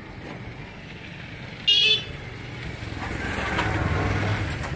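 Street traffic: a short vehicle horn toot a little under two seconds in, then a passing vehicle that grows louder toward the end.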